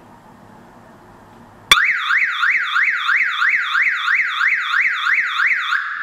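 A wireless car alarm siren goes off suddenly about two seconds in. It sounds a loud electronic warble that sweeps up and down in pitch about three times a second, then stops.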